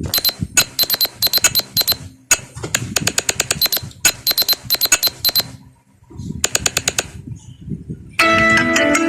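A phone ringtone made of rapid trains of sharp, high clicks, played in bursts of about one to two seconds with short pauses between them. About a second before the end, another ringtone starts, with bell-like chimes.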